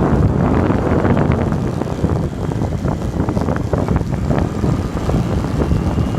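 Heavy wind buffeting the microphone of a bike riding downhill, a steady low rumble with small clicks and rattles scattered through it.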